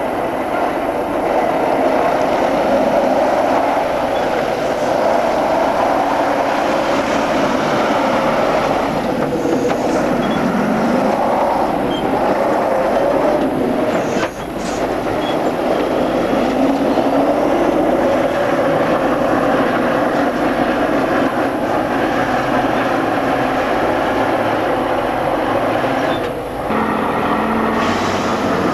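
Heavy Tatra off-road truck diesel engines running hard under load, a loud, steady rumble with two brief dips, about halfway and near the end.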